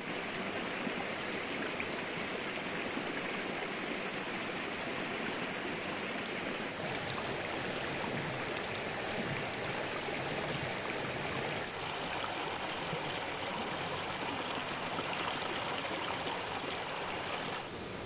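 Water of a shallow rocky forest stream rushing and babbling over stones in a steady wash. The texture shifts slightly about seven and twelve seconds in, and the level drops just before the end.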